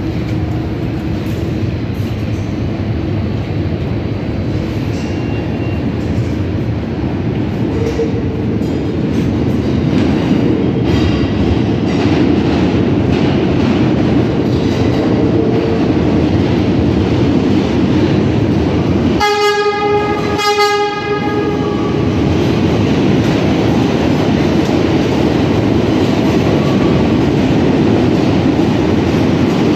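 R68 subway train running into the station, its rumble and wheel clatter growing louder as it approaches and then holding steady as it pulls alongside. About two-thirds of the way through, the train sounds two short horn blasts.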